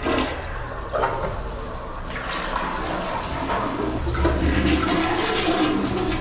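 A toilet being flushed, with water rushing steadily down the sewage drain line.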